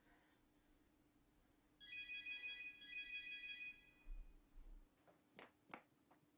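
A telephone ringing: one ring of about two seconds starts about two seconds in, followed by a few short soft knocks.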